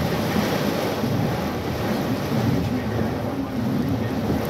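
Heavy rain beating on a car's roof and windshield, heard from inside the cabin as a steady rush.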